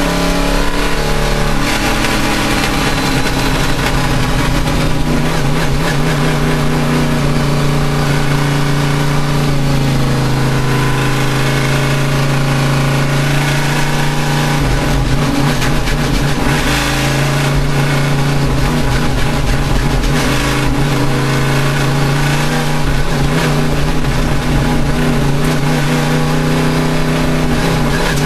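Race car engine running hard at high revs, its pitch rising and falling a few times as it changes speed.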